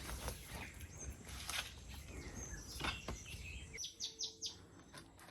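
Birds chirping in outdoor ambience, with scattered short rustles and knocks over a low rumble that drops away nearly four seconds in. A quick run of four short high chirps follows.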